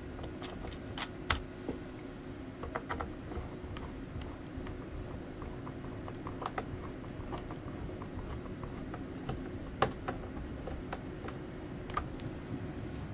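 Scattered small plastic clicks and taps as the E-System Sorrento 1 laptop's underside and cover panel are handled and fitted back with a screwdriver, over a steady low hum.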